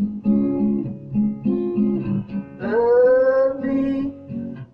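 Acoustic guitar strummed in a steady rhythm of chords, with a man's voice holding one long sung note a little past halfway.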